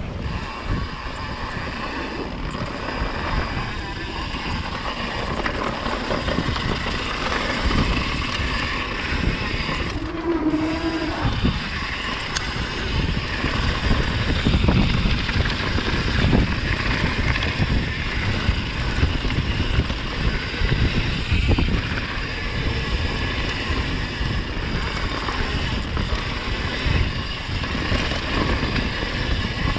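Wind rushing over the camera microphone on a mountain bike descent, with the continual rattle and jolts of the bike and camera over a rough trail.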